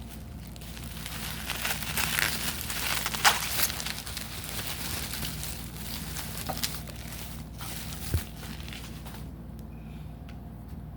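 Plastic packaging crinkling and rustling as trading cards are handled and unwrapped, with a few sharp clicks and taps; the crinkling is loudest about two to three seconds in and dies down near the end.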